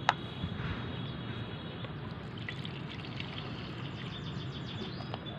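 Liquid poured from a plastic cup into a small plastic mug in a light trickle, with a sharp click just at the start.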